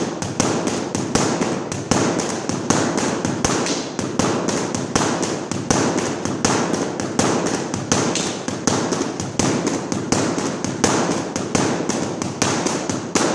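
A pair of escrima sticks striking a hanging heavy punching bag in the four-count sinawali pattern: a rapid, even run of sharp strikes, about four a second.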